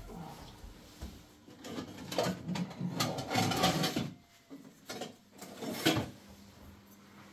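A portable electric heater is handled and dragged across a carpeted floor, with scraping and rustling, then set down with two sharper knocks in the second half.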